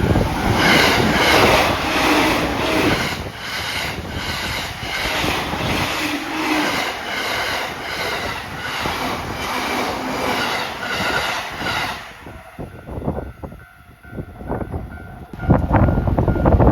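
Tokaido Line local electric train passing a level crossing at about 92 km/h, its wheels clattering over the rail joints in an even rhythm. The train's sound stops about twelve seconds in, leaving the level-crossing bell ringing. A loud low rumble starts near the end.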